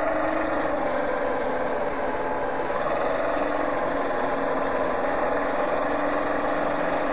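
Engine of heavy demolition machinery running steadily, its pitch wavering slightly up and down.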